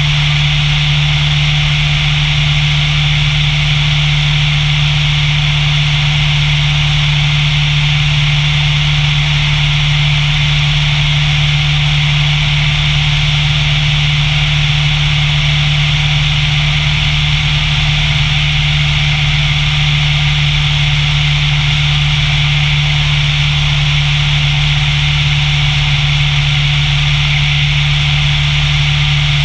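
Single-engine light airplane's piston engine and propeller running steadily in flight: a strong, even low drone with a steady hiss above it.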